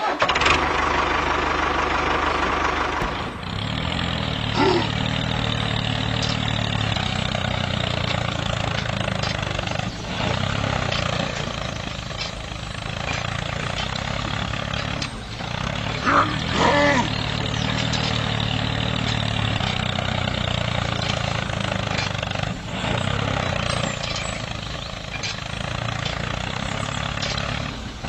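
A tractor engine running steadily at a low, even idle-like pitch, as the mini tractor drags its cultivator through mud. A brief sharper sound about five seconds in and another around sixteen seconds rise above it.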